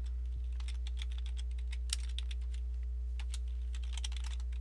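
Computer keyboard typing: a quick, uneven run of keystrokes entering an email address, over a steady low hum.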